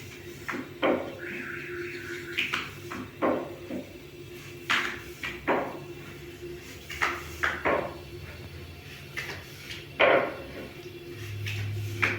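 Kitchen clatter: a dozen or so separate knocks and clinks of dishes, pans and utensils being handled, with a short steady high tone about a second in.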